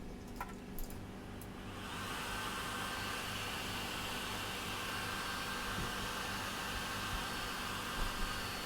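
A few clicks, then about two seconds in a hazer's fan switches on and runs with a steady whirring hiss and a faint high whine.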